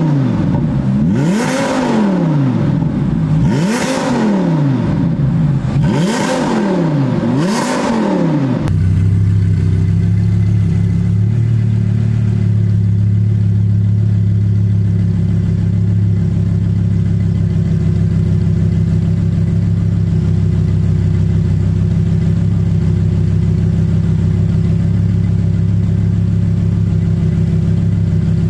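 Audi R8 V10 Spyder's 5.2-litre V10 through an aftermarket exhaust, blipped four times, each rev rising and falling about two seconds apart. About nine seconds in it switches abruptly to a steady idle.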